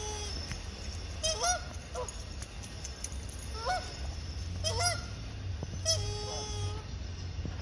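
Canada geese honking in repeated short calls about every second, agitated by a dog swimming in their water. A steady flat tone sounds in the background near the end.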